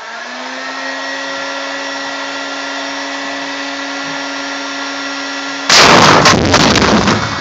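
Heat gun's fan motor running with a steady whine, spinning up just at the start. About six seconds in, the pressurised plastic one-way beer keg that it is heating bursts with a very loud bang, followed by about a second of loud rushing noise.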